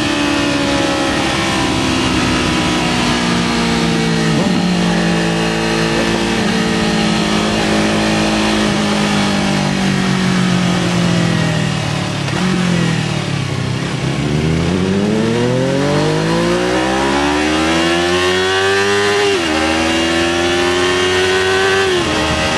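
Yamaha YZF-R3's parallel-twin engine through an SC-Project aftermarket exhaust, heard from on board while riding. The engine note falls slowly for over ten seconds as the bike slows, then rises steeply under acceleration, with quick upshifts about nineteen and twenty-two seconds in, over steady wind noise.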